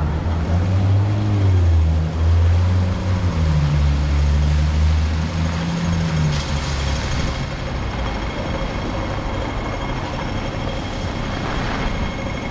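A heavy vehicle's engine running close by in street traffic, a low drone that wavers and rises for about six seconds before easing into a steadier background hum with a faint high whine.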